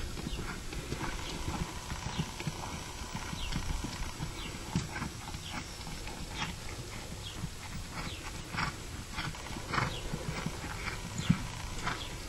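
Quarter horse gelding's hoofbeats on soft dirt arena footing at a lope, an irregular run of dull thuds, with frequent short high-pitched sounds over them.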